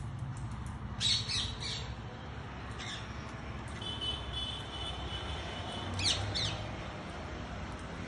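Rose-ringed parakeets giving harsh, screeching squawks in short bursts: a cluster about a second in, one near three seconds, and the loudest about six seconds in, with a thinner held note in between. A steady low hum runs underneath.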